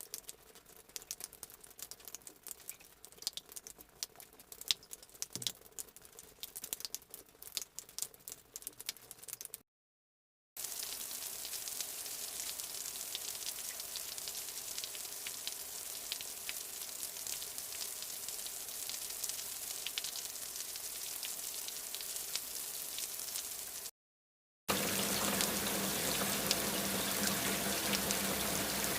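Three separate sound-effect clips, each cut off by a brief dead silence: sparse crackling clicks, then a steady hiss with faint crackle, then a louder steady rushing noise with a low hum, like water running.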